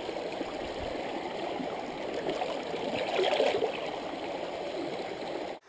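Shallow rocky stream running steadily over stones, a little louder about three seconds in, cut off suddenly just before the end.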